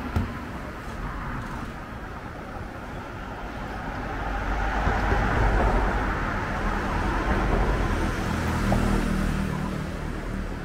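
Road traffic close by: a low engine rumble swells from about four seconds in and eases off near the end, over a steady hum of street noise. A short sharp knock comes right at the start.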